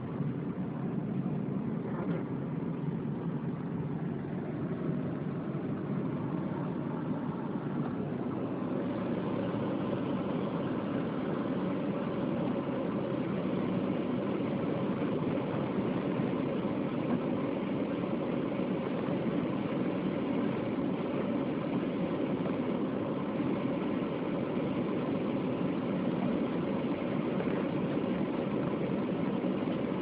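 Steady engine and road noise inside a moving car's cabin.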